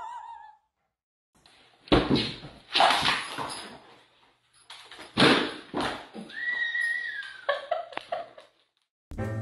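Large dogs barking in short loud bursts, several times, with a drawn-out high whine about two-thirds of the way in.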